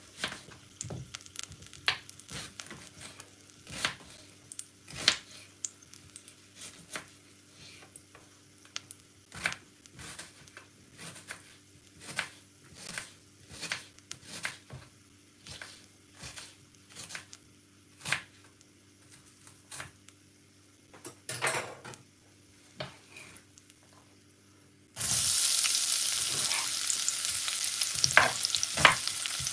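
Knife chopping a red onion on a wooden chopping board: irregular sharp knocks, one or two a second. About 25 seconds in, the diced onion drops into hot oil in the pot and a loud, steady sizzle starts, with a few knocks over it.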